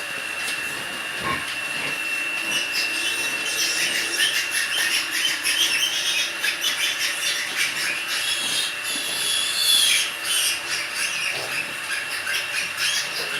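Piglets squeaking and squealing in many short, rapid high calls over a steady hiss, with a constant high-pitched tone running underneath.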